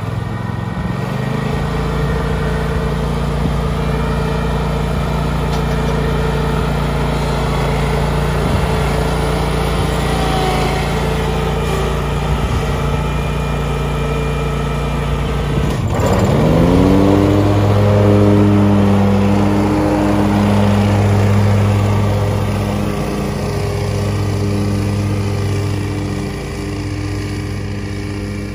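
Ferris ISX 2200 zero-turn mower's Kawasaki FT730EFI V-twin engine running. Its pitch climbs in the first second, then it idles steadily. About halfway through there is a sharp click, after which the engine speed rises and holds at a higher, steady run as the mower drives off.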